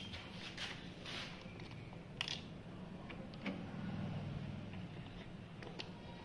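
Faint handling noises as a motorcycle battery is pushed into its compartment and its plastic terminal cover is fitted: scattered light clicks and rustles, with one sharper click about two seconds in.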